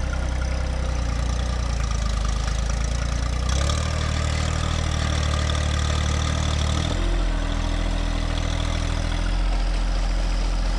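John Deere 1025R compact tractor's three-cylinder diesel running steadily while it works the front loader in soil, its engine note shifting about three and a half seconds in and again around seven seconds.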